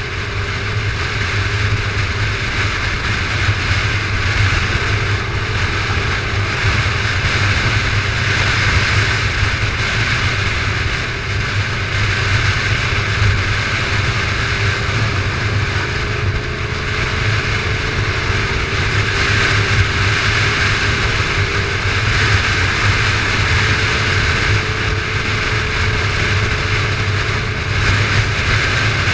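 Motorcycle engine running at a steady cruise, with wind and road noise rushing over the on-board microphone: a steady low drone and hiss, with a faint tone slowly rising in pitch.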